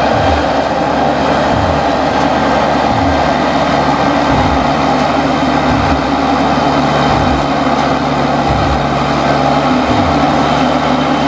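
A skidder's diesel engine running steadily under load with heavy mechanical noise, and a low thud about every one and a half seconds.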